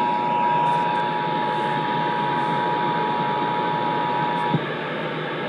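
Emergency Alert System two-tone attention signal, a steady dual tone, heard through loud radio static hiss. The tone cuts off about four and a half seconds in, leaving only the hiss, ahead of the spoken alert.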